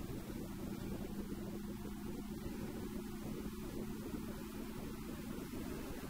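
Steady low drone of a running engine, with a constant hum that does not change in pitch or level.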